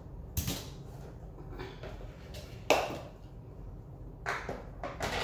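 A few sharp knocks and taps of hard plastic as resin 3D-printed parts and plastic storage containers are handled, the loudest about two and a half seconds in.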